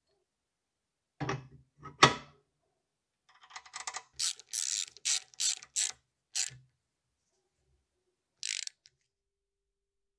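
A few sharp metal clacks, then a socket ratchet worked in short strokes: six quick ratcheting runs in a row and one more a couple of seconds later, as a bolt on a small lathe is tightened.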